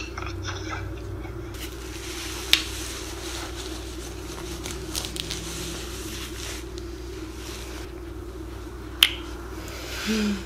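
Soft rustling and handling of a diaper and wipes during a baby's diaper change, with two sharp clicks, one early and one near the end, over a steady low hum. A brief baby coo just before the end.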